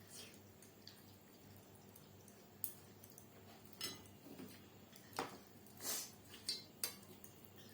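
Faint, scattered taps and clinks of dishes and cutlery at a meal, about half a dozen short ones in the latter part, against near quiet.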